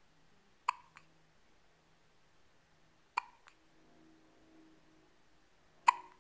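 A baby hiccuping three times, about two and a half seconds apart, each a sharp short hic; the first two are followed by a fainter second click.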